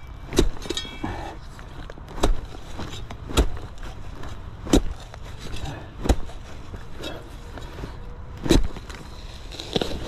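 A D-handle digging shovel chopping and scraping into root-filled soil, with about six sharp strikes one to two seconds apart.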